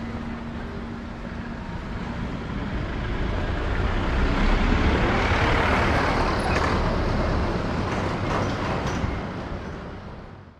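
A motor vehicle driving past on the road, its noise growing louder to a peak about halfway through and then fading away.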